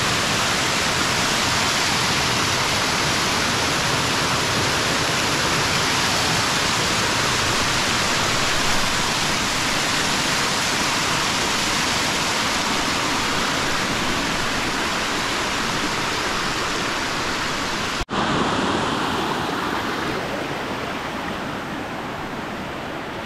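Water pouring down a small waterfall on a forest stream, a steady rushing. About eighteen seconds in it breaks off for an instant, then comes back quieter and fades toward the end.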